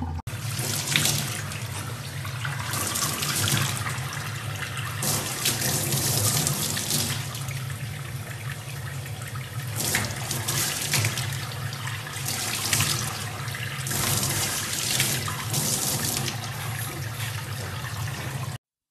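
Tap water running into a stainless steel sink, splashing as a baby chimpanzee holds its hands in the stream; the splashing swells louder now and then. It cuts off suddenly near the end.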